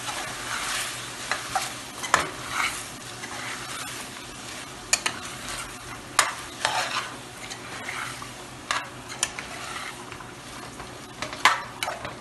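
A spoon stirring chicken and chopped vegetables in a pot, scraping and clicking against the pot at irregular intervals over a steady sizzle of the food frying.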